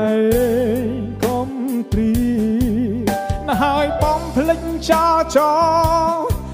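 Khmer pop song: a melody with heavy vibrato and pitch bends over a steady bass line and drum beat.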